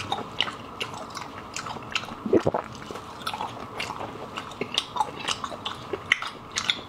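Close-up chewing of tender stewed beef rib meat: a run of wet smacking clicks from the mouth, with a short hum about two and a half seconds in.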